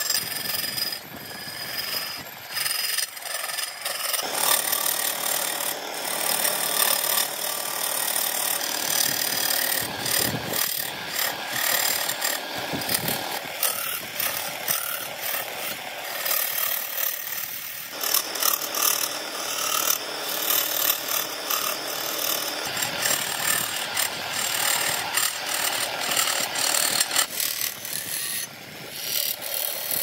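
Wood-lathe turning tool cutting a spinning burl wood and epoxy blank: a continuous rough scraping and rasping as shavings fly off, broken by many small clicks and catches.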